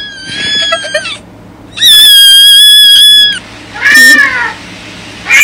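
Cat meowing: two long, high, drawn-out cries in the first few seconds, then shorter meows that fall in pitch near the end.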